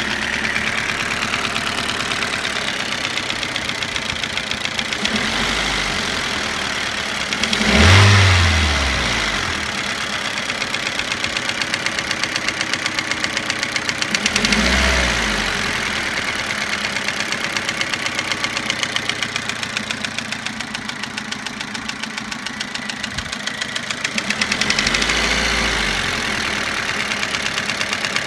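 Toyota Avensis engine idling with a rapid, even knock, revved briefly three times, the first blip the loudest. The knock is present after the engine was re-sleeved and given new piston rings and timing parts.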